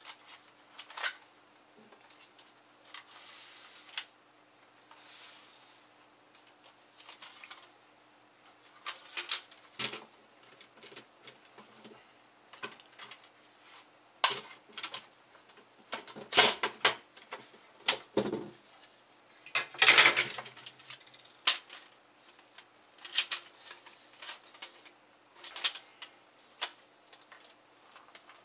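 Plastic and metal parts of a dismantled DVD drive (tray, frame and circuit board) clicking and knocking as they are handled and pried apart by hand, in irregular taps. A cluster of louder clatters comes a little past halfway.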